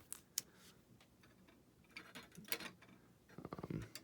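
Trading cards being handled and slid into a plastic sleeve: a few light clicks, a cluster of small clicks in the middle, and a quick rapid rustle near the end.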